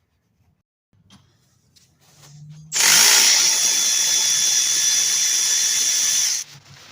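A cordless power tool spinning a seatbelt bolt, running steadily with a high-pitched whine for about three and a half seconds, then stopping abruptly, after a few light handling clicks.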